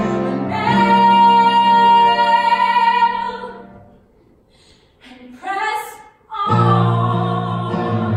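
A woman singing a long held note over a steady instrumental backing, fading out about four seconds in. About six and a half seconds in, a loud sustained chord with a strong low bass starts.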